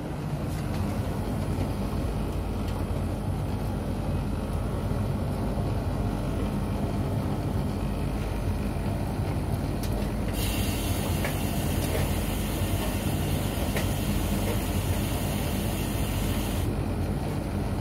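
Hotpoint Ariston Aqualtis front-loading washing machine running a 30° wash, a steady low hum. About ten seconds in, a higher hiss joins the hum and stops about six seconds later.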